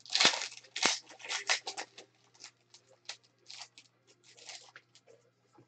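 Foil wrapper of a Prizm baseball card pack being torn open and crinkled, then the cards inside being handled and rustled. The crinkling is loudest in the first two seconds and turns to sparser, softer rustles after that.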